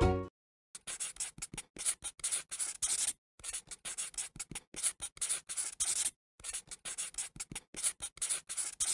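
Background music stops at the very start. Then a pen scratches across paper in quick short strokes, in three runs of about two and a half seconds each, with brief pauses between.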